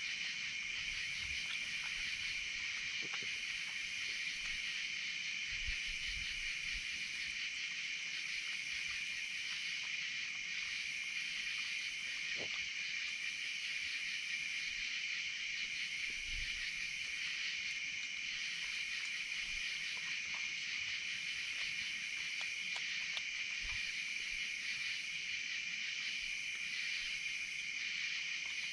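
Night insect chorus: a steady high-pitched buzzing of crickets, with a still higher call that switches on and off every second or two, and a few faint clicks.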